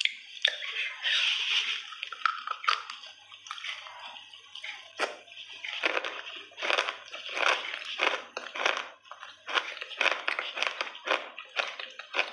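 Close-up chewing of crunchy chunks of clay: a run of crisp, irregular crunches with wet mouth sounds.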